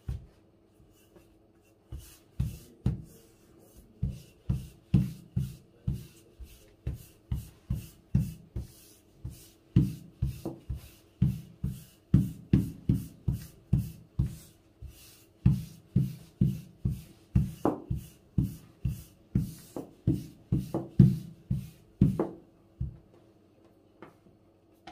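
Long, thin wooden rolling pin (oklava) worked back and forth over a floured stack of baklava dough sheets on a wooden table, knocking rhythmically about twice a second. It starts about two seconds in and stops shortly before the end.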